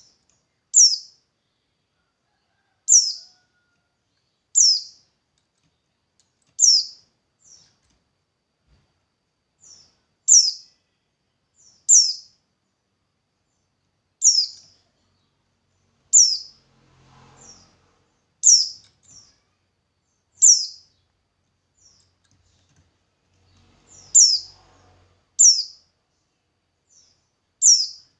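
A bird repeating a single short, high chirp that drops in pitch, about thirteen times at uneven gaps of one to four seconds, some chirps followed by a fainter short note.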